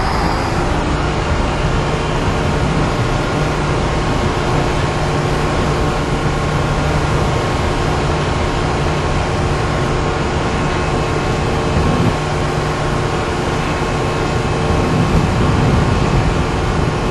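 Steady mechanical hum and whir of a vertical boat lift raising a water-ride boat up its tower, with a low drone under several steady tones, growing a little louder near the end.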